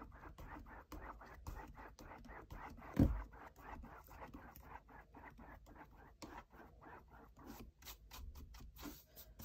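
Flat paintbrush with wet acrylic paint stroking rapidly up and down across a stretched canvas: a run of scratchy brush strokes, about five a second. One dull thump about three seconds in.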